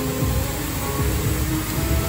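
Background music with sustained notes over a low rumble.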